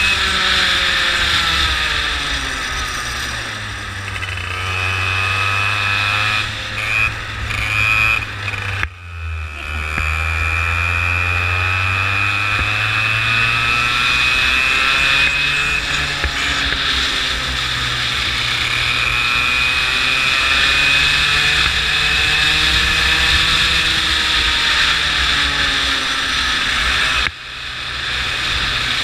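Go-kart engine heard from on board while lapping, its pitch dropping and climbing again over and over. The sound falls away sharply and briefly about nine seconds in and again near the end.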